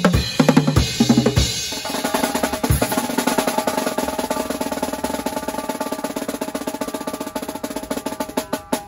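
Acoustic drum kit being played: a few separate drum hits, then from about two seconds in a long, fast drum roll that carries on until near the end, where single strokes start again.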